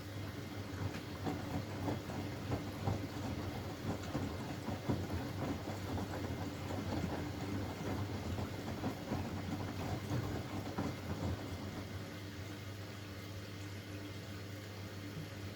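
Hoover Axi 9kg front-loading washing machine in its wash phase: water sloshing and splashing in the turning drum over a steady motor hum, in uneven surges.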